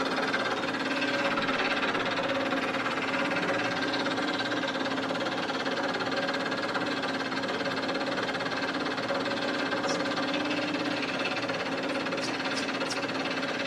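Metal lathe running with its chuck spinning: a steady machine hum made of several steady tones. A few faint clicks come near the end.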